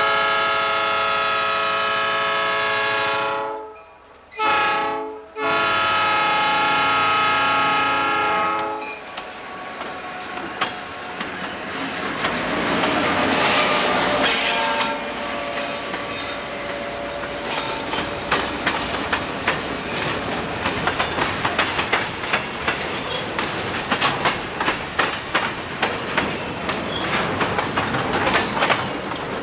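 Freight diesel locomotive's air horn sounding at a grade crossing: a long blast, a short blast, then another long blast. The locomotive's engine then grows louder as it approaches. From about halfway on, its wheels click steadily over the rail joints as it rolls through.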